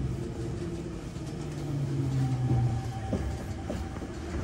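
Electric commuter train running, heard from inside the passenger car. A low hum swells about a second and a half in, a thin steady higher tone joins it, and a few light clicks come near the end.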